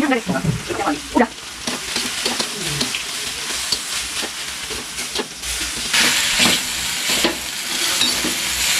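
Water spinach (kangkung) sizzling as it stir-fries in a metal wok over a gas flame, with short knocks of the stirring spatula against the wok. The sizzle grows louder about six seconds in.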